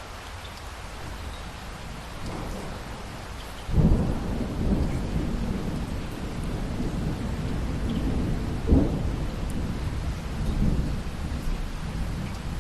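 Steady rain with a sudden thunderclap a little under four seconds in that rolls into a long low rumble, and a second sharp crack of thunder about nine seconds in.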